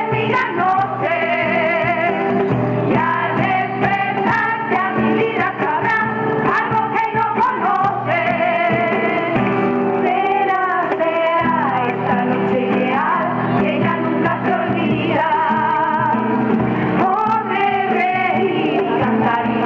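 Spanish folk group performing a song: a chorus of women's voices singing with a wavering vibrato, backed by acoustic guitars and hand percussion.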